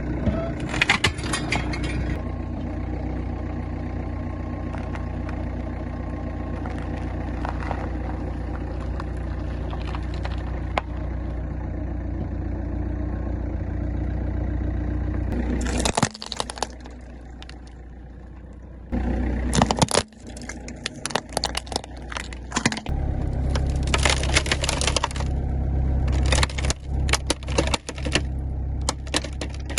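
A car's engine running with a steady low hum, which cuts off abruptly about halfway through. It is followed by bursts of crunching and cracking as the car's tyres roll over and crush objects, over the engine again.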